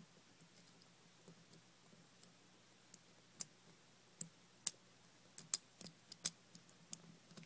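Faint, irregular sharp metallic clicks of a thin metal pick prying at the parts of a brass EMTEK lock cylinder as it is taken apart. The clicks come singly and scattered, most of them from about three seconds in.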